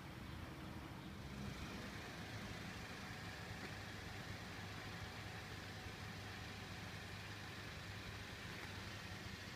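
Steady low hum of a running machine under faint outdoor background noise, which thickens slightly about a second and a half in.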